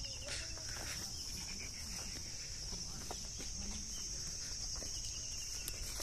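Insects droning steadily at a high pitch, with a bird's fast trill of repeated notes about five seconds in and light footsteps on a dry dirt path.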